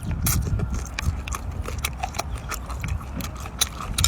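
Close-up eating sounds: chewing with irregular crisp clicks and wet smacks, several a second.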